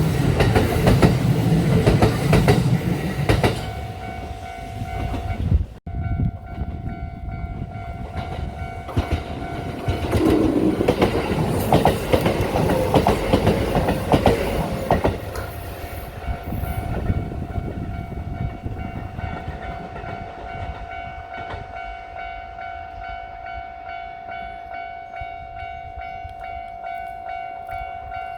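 A Kintetsu train running over a level crossing, wheels clicking on the rails, until a sudden cut about six seconds in. The crossing's warning bell then rings steadily in repeating tones to the end, with another burst of train clatter from about ten to fifteen seconds in.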